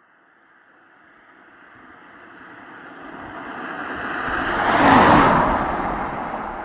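A car approaching and passing by: road and engine noise builds gradually for about five seconds, peaks as it goes past, then fades as it moves away.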